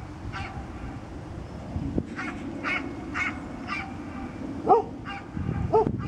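An old dog barking up into a tree: a string of short, sharp barks, with two louder, deeper barks near the end.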